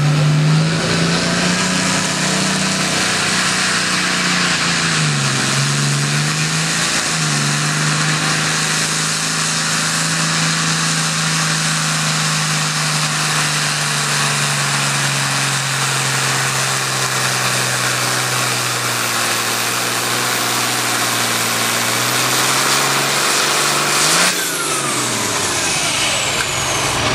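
Farm tractor's diesel engine at full throttle pulling a weight-transfer sled, a loud steady drone that sags briefly about five seconds in as it lugs under the load, then recovers. Near the end the throttle is cut: the engine falls away and a high whine slides down.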